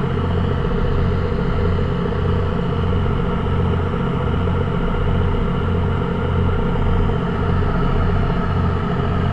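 Boat engine running steadily under way: a low drone with a regular throb.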